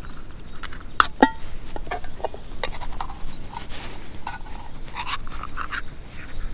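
Small clicks, clinks and rustles of fishing tackle and bait being handled while a hook is baited with sweetcorn kernels. One clink about a second in rings briefly.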